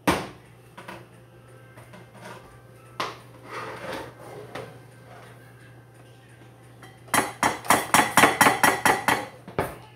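A metal serving spoon scraping mashed potatoes from a pot, then knocking on the pot's rim in a quick run of about a dozen sharp strikes, roughly five a second, to shake the potatoes off the spoon.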